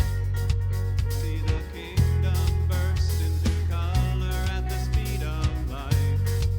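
Congregational worship song played by a band with drums, bass and guitar, and a singing voice. The music drops out briefly about two seconds in, then comes back in full.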